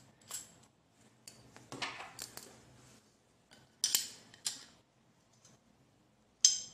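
A threaded steel rod and a 3D-printed plastic filing jig handled and adjusted by hand, giving a few light clicks and scrapes, with a sharper metallic clink near the end.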